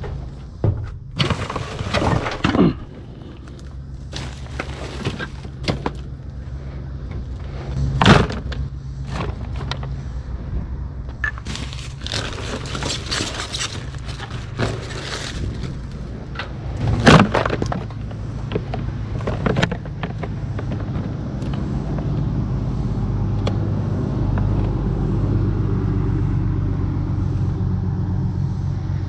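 Pieces of scrap copper thrown down one after another, each landing with a metallic clunk and clatter; the hardest strikes come about eight and seventeen seconds in. An engine runs steadily underneath and grows louder in the last several seconds.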